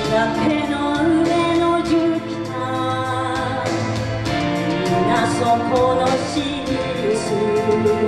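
A woman singing a Japanese pop song into a hand-held microphone over instrumental accompaniment.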